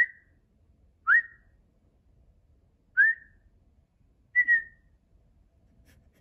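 A person whistling with the lips at a dog: four short whistled notes, well spaced. The first three each swoop quickly upward and the last is a level, slightly falling double note.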